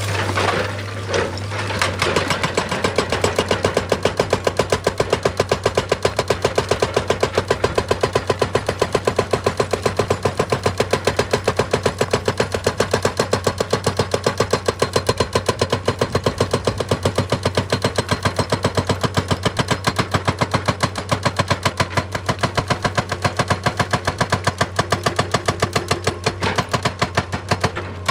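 Hydraulic rock breaker on an excavator hammering stone in rapid, evenly spaced blows, starting about two seconds in, over a steady low hum.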